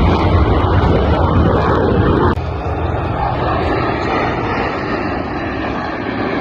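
A fixed-wing aircraft's engines run loud, with a heavy low rumble. The sound drops off abruptly about two seconds in and carries on a little quieter.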